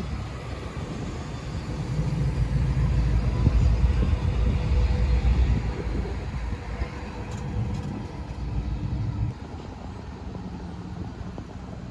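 Car engine running with a low rumble that grows louder a couple of seconds in, is loudest around the fourth second, and drops away abruptly after about nine seconds.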